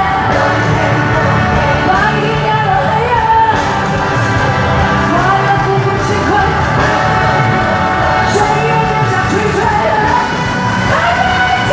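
Amplified live pop song from a concert sound system: a singer's voice carrying a melody over band backing with a steady beat.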